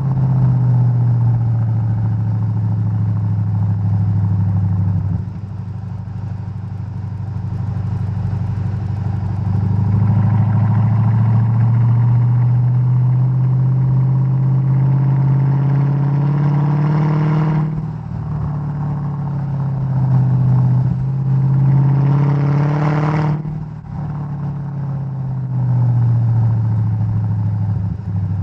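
Mercedes-Benz E 55 AMG W211's supercharged V8 exhaust under acceleration, the engine note climbing steadily in pitch. About two-thirds of the way in, and again near the end, the pitch breaks off and drops abruptly, as at a gear change or throttle lift.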